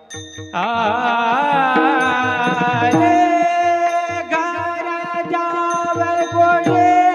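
Kirtan singer's high male voice singing a long, drawn-out devotional phrase: it slides and wavers from about half a second in, then holds one high note from about three seconds in. Pakhawaj drum strokes and steady sustained accompanying tones play underneath.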